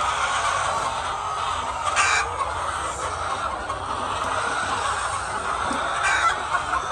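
A flock of laying hens clucking together in a steady din, with a couple of sharper, louder calls about two seconds and six seconds in.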